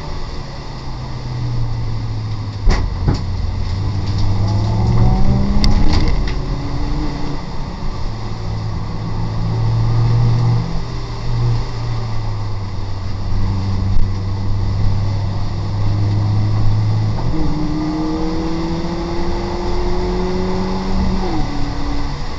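BMW Compact race car's engine heard from inside the cabin, holding steady at times and rising in pitch under acceleration, with a drop at a gear change near the end, over the hiss of wet tyres and spray. A few sharp knocks come about three and six seconds in.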